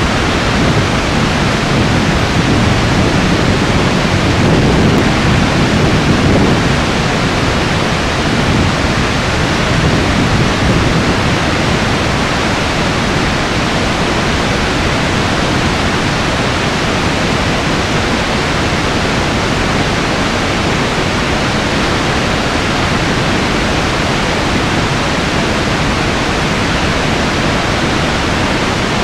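Iguazu Falls: a huge waterfall's water plunging over the cliffs into its spray-filled gorge, heard as a loud, steady, unbroken rush. It is a little deeper and heavier for the first ten seconds or so.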